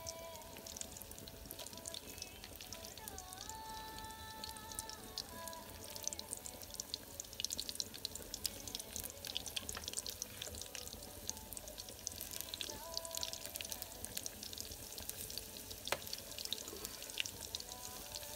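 Onion pakoras deep-frying in hot oil in a wok: a steady crackling sizzle that grows busier about a third of the way in.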